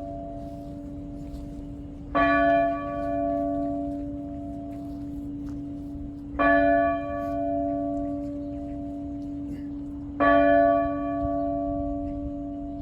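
A single church bell tolling slowly, struck three times about four seconds apart, each stroke ringing on and fading before the next. It is the bell rung to call the parish to Sunday Mass.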